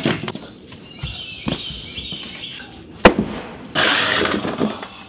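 Wooden logs clattering down onto a concrete porch floor, then a few sharp wooden knocks, the loudest about three seconds in, and a short burst of scraping noise a little later.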